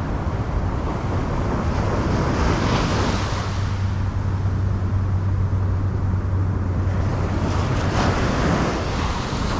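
Small surf breaking and washing up a sandy beach, the wash swelling twice, with a steady low rumble of wind on the microphone.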